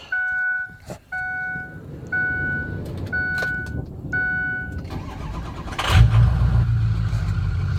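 Ford Excursion's warning chime beeping five times at an even pace, then the 6.8-litre V10 cranking and catching with a loud burst about six seconds in, settling into a steady idle. The owner suspects a knock in it, possibly rod knock.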